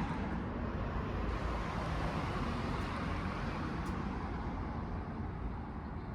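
Steady background rumble and hiss with no distinct events, like road traffic, growing slightly quieter near the end.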